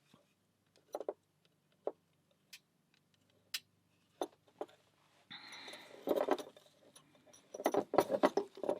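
Small metal lock and keys being handled: scattered single clicks and clinks, a short rustle about five seconds in, then bursts of rattling clinks near the end.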